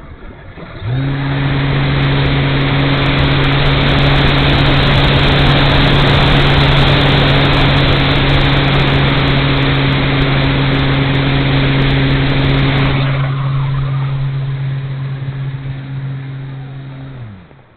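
E-flite Night Radian's electric motor and propeller starting up about a second in and running at a steady pitch under a loud rushing hiss of air. The hiss eases a few seconds before the end, then the motor hum falls in pitch and stops as the power is cut.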